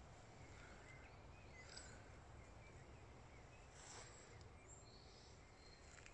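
Near silence: faint woodland ambience with a low rumble and a few distant bird chirps about a second in and again around four seconds in.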